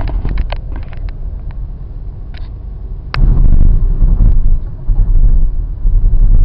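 Low cabin rumble inside a moving VW T-Cross from its tyres and engine. About three seconds in there is a sharp click, after which the rumble turns much louder and uneven as the car slows toward a toll gate.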